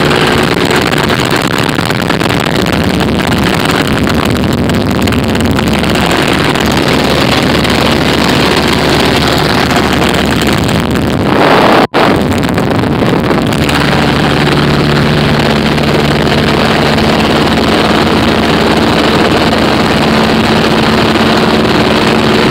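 Piper L-4 Cub's four-cylinder Continental engine and propeller running steadily at cruise, heard from inside the cockpit with air rushing past the open window. The sound cuts out for an instant about halfway through.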